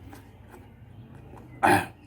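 Eating sounds: faint chewing and mouth clicks, then one short, loud throat sound near the end, like a gulp or hiccup.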